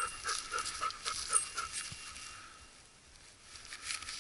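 Wirehaired pointing griffon panting rapidly, about four pants a second, fading out after about two seconds. A brief rustle comes near the end.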